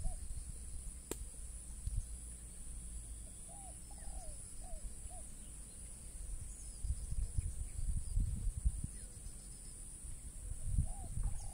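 Pond-side outdoor ambience: a steady high insect drone throughout, a bird giving a short run of about four arched call notes twice, and uneven low rumbles of wind on the microphone.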